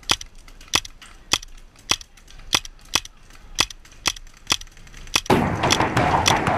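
Paintball marker firing single shots, about ten sharp cracks at roughly one every half second. About five seconds in, a denser, louder sound comes in over them.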